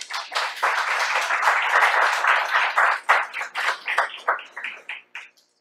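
Audience applauding at the end of a lecture: dense clapping at first, thinning to scattered single claps that stop about five seconds in.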